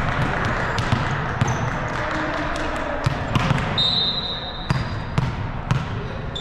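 Indoor volleyball play in a gym hall: sharp knocks of the ball being hit and bouncing, over a steady wash of background chatter, with a brief high squeak about four seconds in.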